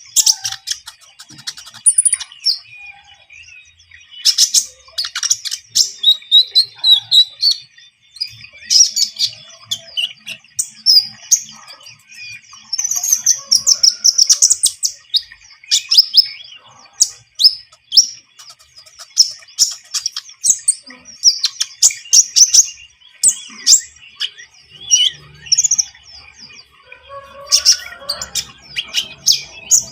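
Konin songbird singing energetically (gacor): a fast, unbroken run of loud, high-pitched chirps, trills and short whistled phrases.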